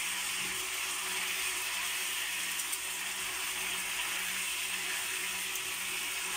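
Chicken pieces sizzling as they fry in oil in a wok, a steady hiss, under a low hum that pulses on and off about twice a second.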